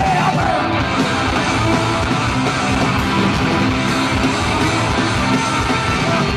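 Punk rock band playing live: distorted electric guitars, bass and drums driving through an instrumental passage with no vocals.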